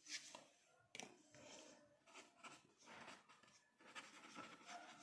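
Faint scratching of a marker pen writing on paper, after a soft tap near the start and another about a second in.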